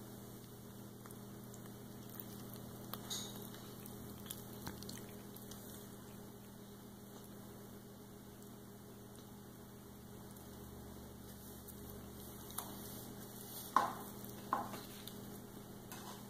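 A toddler chewing on corn on the cob: faint wet mouth clicks and smacks over a steady low hum, with two short louder sounds near the end.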